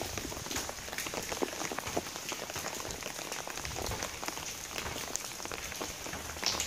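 Heavy rain pouring down on a stone-paved street, a steady hiss dotted with many individual drops ticking sharply.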